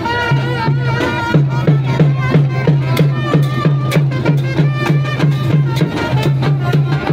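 Traditional procession music: a steady drum beat of about three strokes a second under a wavering, reedy pipe melody.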